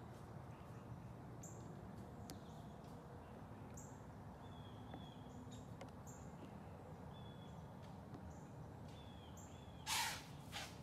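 Quiet outdoor ambience with faint, short, distant bird calls now and then. Near the end, two brief rustling scrapes sound close to the microphone.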